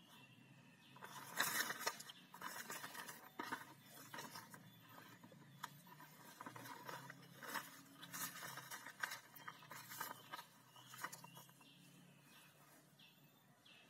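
A paper instruction sheet being handled and folded, rustling and crinkling in irregular bursts for about ten seconds, loudest about a second and a half in.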